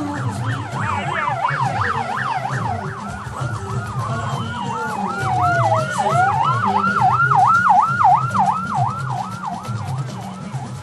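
Vehicle sirens on a fast yelp, rising and falling about three and a half times a second, with a second siren gliding down and back up midway; loudest in the second half.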